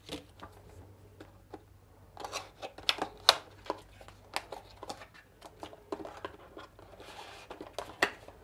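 Cardboard retail box being opened by hand: irregular clicks, scrapes and tearing of card as the seal is cut with a small craft knife and the end flap pulled open, loudest about three seconds in. Near the end the inner box slides out of its cardboard sleeve with a soft rasp and a sharp click.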